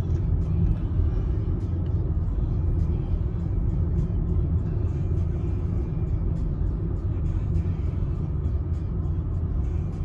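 Steady low road and tyre rumble inside the cabin of a moving Nissan Leaf electric car, with a few faint clicks.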